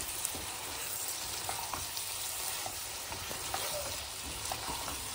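A spatula stirring a thick spiny gourd (kankada) curry in a non-stick pan, the gravy sizzling steadily, with a few light clicks of the spatula against the pan.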